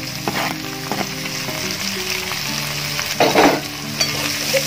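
Sliced onions sizzling in hot sunflower oil, just added to the pot, with a brief louder burst about three seconds in.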